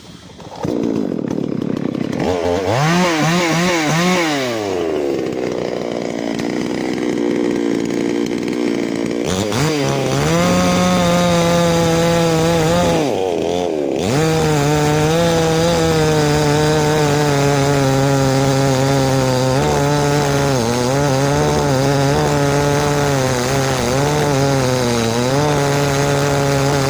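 Chainsaw starting up suddenly and revving up and down, then running steadily at high speed with brief dips in pitch as it cuts into wood. It cuts out briefly about halfway through, then runs on.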